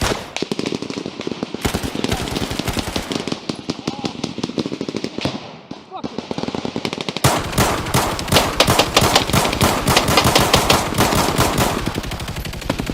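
Sustained automatic gunfire in a firefight: many rapid shots in long bursts, easing off for a moment around the middle, then heavier and louder from about seven seconds in.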